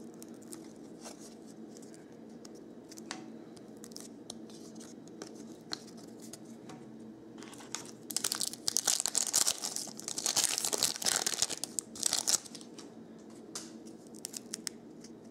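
Foil wrapper of a hockey card pack being torn open and crinkled: a loud crackling stretch of about four seconds in the middle, with quieter clicks and rustles of cards being handled before and after.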